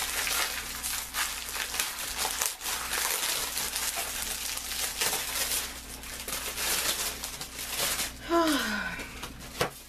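Crinkling and rustling as a pack of synthetic braiding hair is handled. About eight seconds in, a short vocal sound falls in pitch.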